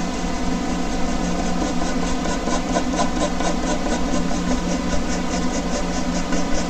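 Air conditioner running with a steady hum, under the rapid, rhythmic scratching of a ballpoint pen on paper: back-and-forth hatching strokes at about five a second, starting about two seconds in.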